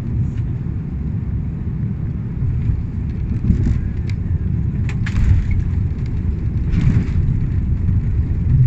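Airliner cabin noise during descent to land: a steady low rumble of engines and airflow, with a few faint short clicks partway through.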